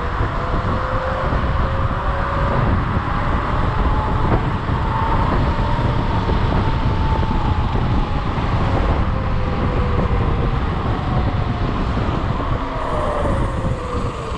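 Wind rushing over the microphone of a moving electric scooter, with a faint motor whine that slowly rises and falls in pitch as the speed changes.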